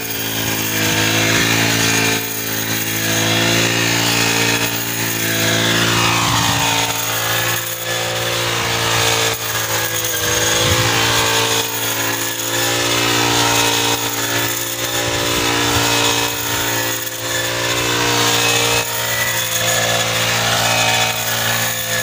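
Small two-stroke petrol engine of a backpack brush cutter with a wheat-reaping blade, running at high speed while cutting standing wheat. Its note wavers and dips about every two seconds as the cutting head is swung through the stalks.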